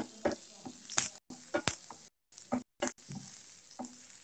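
Chopped garlic and green chillies sautéing in a little hot oil in a pan, being stirred: irregular clicks and knocks of the spoon against the pan over a faint sizzle. The sound cuts out completely for short moments a few times, as over a video call.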